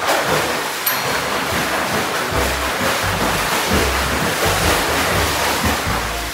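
Loud, steady rush of churning water.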